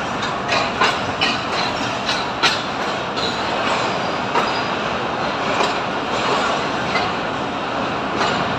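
Train rolling through the station, a steady rumbling noise with a few sharp clicks of wheels over rail joints in the first three seconds.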